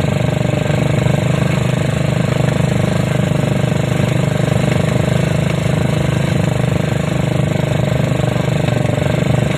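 ATV engine running at a steady speed, an even, low, pulsing drone that holds without change.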